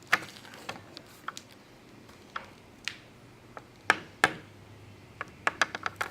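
Thin plastic pry tool being worked along the edge of a Samsung Galaxy S5, giving sharp, irregular clicks and ticks as it separates the glass from the frame's adhesive, with a quick run of clicks near the end.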